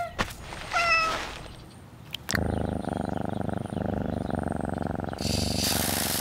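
A cat gives a short meow about a second in, then purrs with a fast, even rumble for about three seconds. Near the end the hiss of lawn sprinklers spraying water starts.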